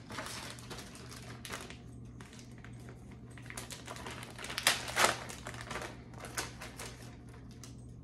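Plastic packaging crinkling and rustling in gloved hands: irregular crackles, with a louder cluster about five seconds in.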